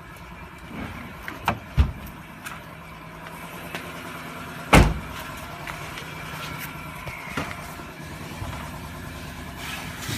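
A car door shutting with a heavy thump about five seconds in, after a sharper knock about two seconds in, over a steady background hum.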